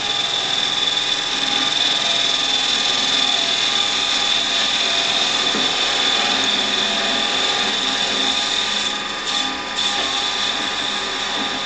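Metal lathe running steadily with a constant high whine, spinning a piece of 1-inch aluminum round stock in the chuck. The level dips briefly near the end.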